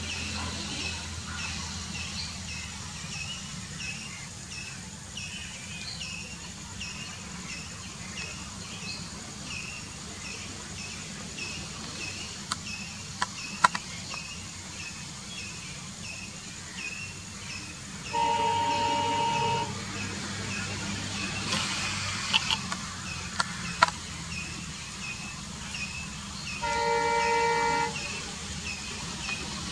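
A WDP4D diesel locomotive's multi-tone air horn sounds twice as the train approaches: a blast of a bit over a second about two-thirds of the way in, and another near the end. Under the horn there is a low steady engine rumble, a high chirping that repeats about twice a second, and a few sharp clicks.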